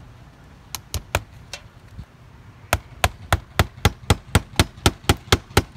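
Hammer blows on cedar shakes being fitted to a house gable: a few spaced strikes, then a quick, even run of about four blows a second.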